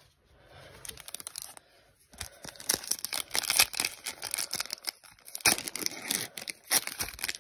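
Foil wrapper of a trading-card pack being torn open and crinkled by hand: a quick run of sharp crackles starting about a second in, with a brief lull near the end.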